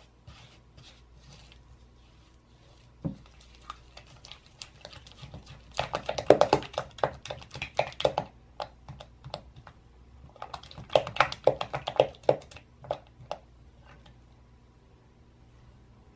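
Silicone spatula mixing cream cheese and granulated sugar in a glass bowl: quick strokes scraping and tapping against the glass, in two bursts of brisk mixing, with a single knock about three seconds in.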